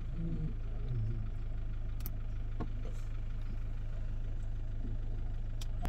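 Car engine running, heard from inside the cabin as a steady low hum, with a few faint clicks.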